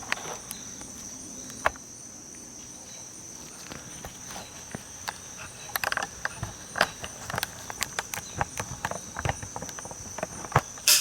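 Steady high insect trill, with scattered clicks, knocks and footsteps as the camera is taken down and moved by hand.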